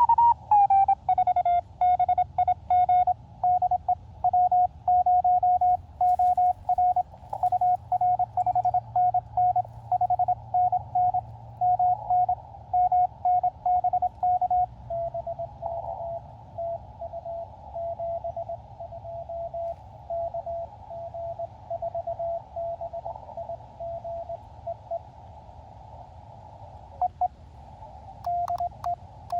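Morse code (CW) signals received on an Elecraft KX2 transceiver, heard as keyed beeps over a narrow band of receiver hiss. The pitch slides down as the radio is tuned onto a strong station, which sends for about fifteen seconds. A weaker station at a slightly lower pitch follows, and strong keying returns near the end.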